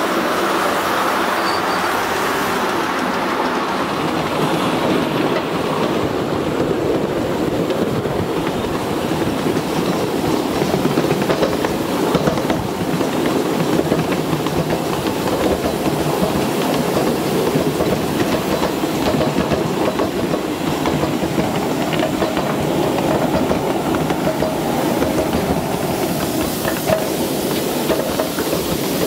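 Ridable live-steam scale train running along its track, a steady rumble of the riding cars' wheels on the rails with clickety-clack.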